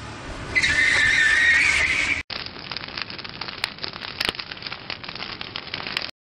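Emergency-vehicle siren wailing, cut off abruptly a little over two seconds in, followed by a fire crackling with many sharp pops that stops suddenly near the end.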